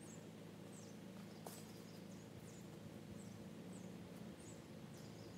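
An engine idling steadily in the distance, with small birds giving short high chirps every second or so.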